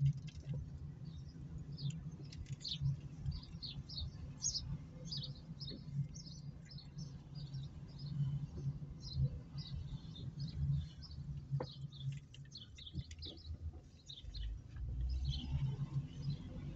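Birds chirping in quick, irregular calls throughout, over the steady low hum of the car's engine and tyres as it drives slowly.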